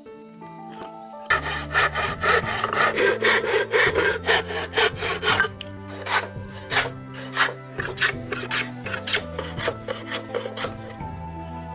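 A hand tool rubbing through wood in back-and-forth strokes, starting about a second in. The strokes come fast and close together at first, then slow to separate strokes about two a second, before stopping near the end. Background music plays underneath.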